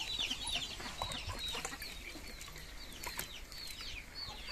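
Birds chirping: many short, high, falling peeps, several a second, with a few faint clicks among them.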